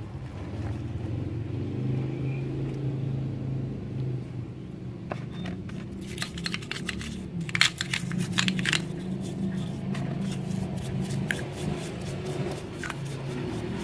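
A motor engine idling steadily in the background, a low even hum. In the middle, a few seconds of sharp clicks and short hissy spurts come from small carburetor parts being handled and cleaned.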